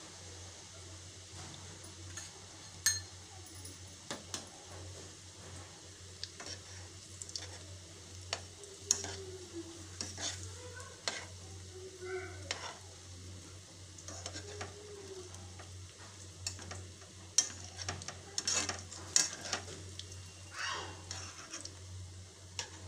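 Breadcrumb-coated bread rolls shallow-frying in mustard oil in a metal pan, with a steady sizzle. A metal spoon scrapes and clicks against the pan as the rolls are turned, more often in the second half.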